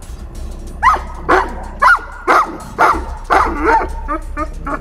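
Livestock guardian dog yelping in a rapid series, about two high calls a second, with shorter, quicker yelps near the end, while being pressed down by another dog in a rank fight.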